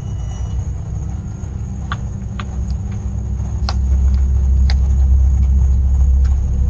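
A vehicle's low rumble through a doorbell camera's microphone, growing louder about four seconds in, with a few short high chirps or clicks over it.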